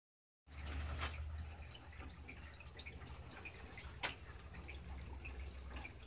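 Faint outdoor ambience: a low steady rumble with scattered light ticks and chirps, and two sharper clicks, about a second in and about four seconds in.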